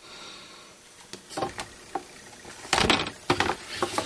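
Scattered light clicks and taps of a paintbrush and a laminated colour sheet being handled on a plastic craft mat, with the loudest knock about three seconds in.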